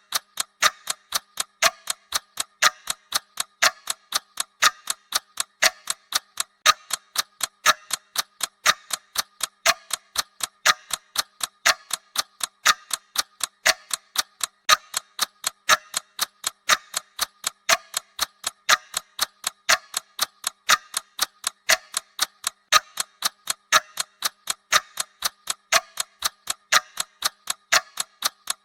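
Ticking-bomb timer sound effect: a fast, even clock-like ticking that keeps a steady rhythm, counting down.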